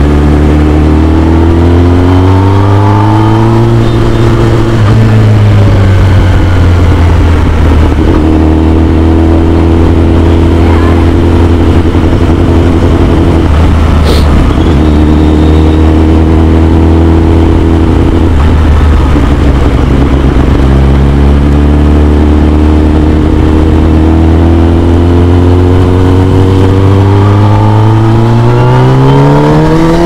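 Kawasaki ZX-10R's inline-four engine through an Akrapovic full-system exhaust, under way. The revs rise in the first few seconds, hold steady through the middle with short breaks, then climb again near the end, steeply at the very end. There is a sharp click about fourteen seconds in.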